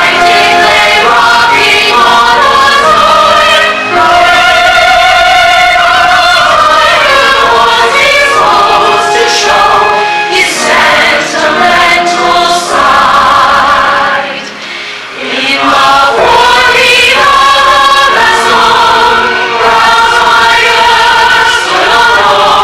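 Several voices singing together with musical accompaniment in a stage-musical number. The music dips briefly about two-thirds of the way through, then the singing comes back in full.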